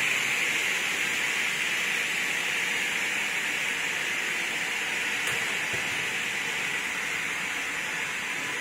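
Double-head aluminium cutting saw running with a steady hiss, slowly getting quieter.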